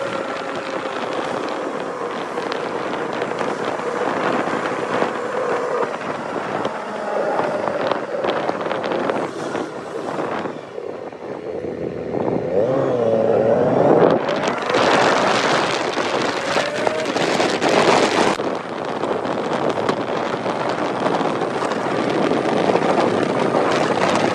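Motorcycle engine running while riding, with wind noise over the microphone. The engine pitch wavers and swings up and down about halfway through, then the wind noise grows much louder for a few seconds.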